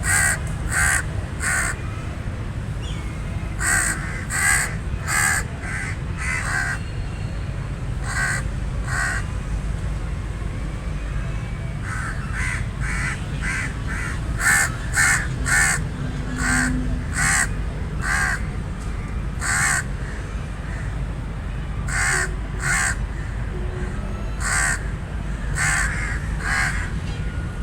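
Raven cawing: short harsh calls in runs of two to six, with pauses of a second or more between the runs, over a steady low rumble.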